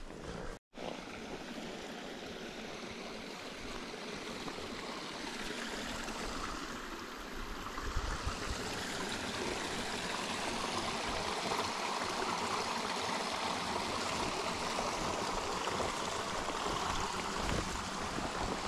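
Small forest brook running over rocks, a steady rushing of water that grows gradually louder from about halfway through. A brief drop to silence comes just under a second in.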